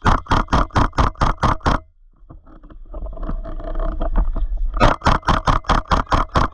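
Two runs of rapid, evenly spaced sharp clacks, about five or six a second, the first lasting nearly two seconds and the second starting near the end, with a rough rumbling noise between them.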